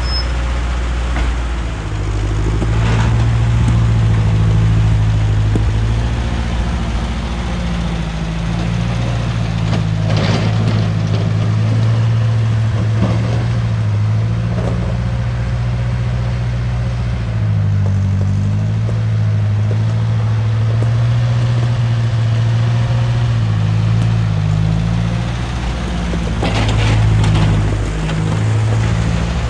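1955 Ferguson TO35 tractor's engine running as the tractor pushes snow with its front blade, its pitch shifting up and down now and then, with a few brief rasping noises over it.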